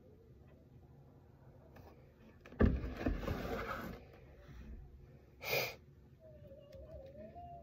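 Plastic laundry-detergent jug handled at a washing machine: a sharp knock, then about a second of noisy rustle. A short sharp click follows a few seconds later, and a faint wavering thin tone starts near the end.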